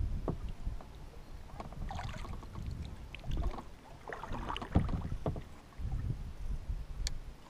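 Kayak being paddled: the paddle blade swishing and splashing through the water in uneven strokes, with dull knocks and bumps on the hull.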